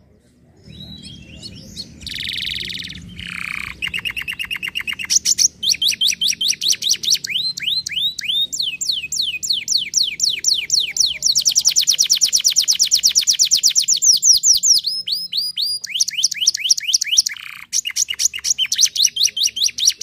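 Yellow domestic canary singing a long song of rapid trills and repeated sweeping notes, with a short harsh buzzy phrase about two seconds in and a brief break near the end.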